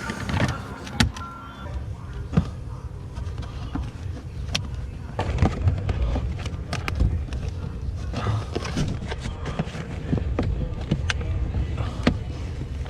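Irregular clicks and knocks from hands working on car interior parts, over a low rumble, with a few sharper knocks.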